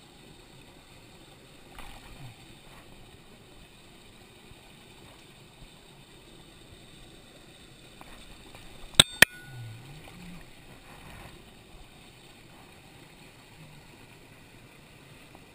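Small stream water running and lapping faintly while a hand holds a brown trout in the shallow current. About halfway through, two sharp clicks come in quick succession, much louder than the water.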